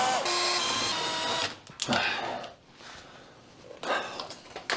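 Cordless drill-driver backing out screws under the car: its motor whine dips in pitch at the start, runs again for about a second and a half, then stops. A couple of brief handling and clattering noises follow as the loosened front splitter is worked free.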